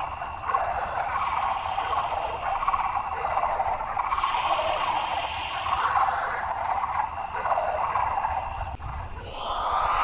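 Sound-designed Velociraptor call blended from modern bird and reptile sounds: a rasping hiss that swells and eases, over a steady high chirping of about three pips a second.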